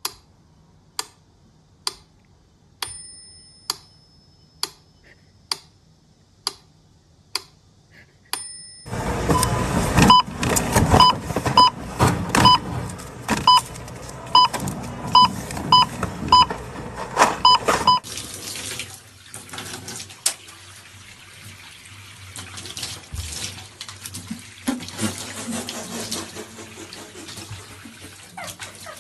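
About once a second, sharp single clicks, then from about nine seconds a loud, dense stretch with short high beeps repeating about twice a second. That stops suddenly at about eighteen seconds, and a bathroom tap runs a thin stream of water steadily into a bathtub.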